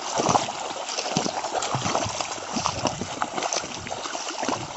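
Muddy water sloshing and splashing in irregular strokes as a bull and plough wade through a flooded paddy field.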